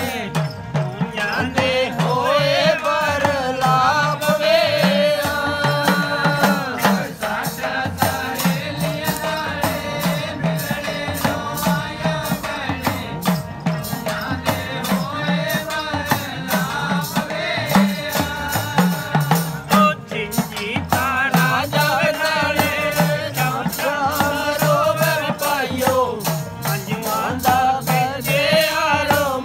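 A group of men singing a Gugga devotional folk song with long, wavering sung lines, over a steady hand-percussion beat.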